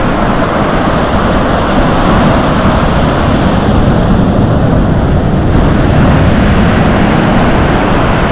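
Loud, steady rush of ocean surf breaking and washing up over the shallows of a beach, with wind rumbling on the microphone.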